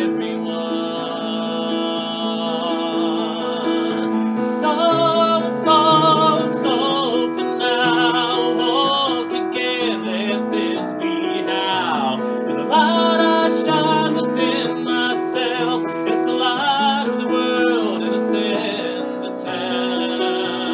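A man singing a folk ballad and accompanying himself on an upright piano, with held sung notes wavering in vibrato.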